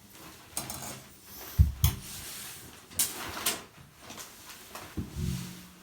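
Clicks, knocks and clatter of a small screwdriver and the metal and plastic parts of a shower diverter valve being worked apart, with two sharp knocks about a second and a half in and a few clicks after.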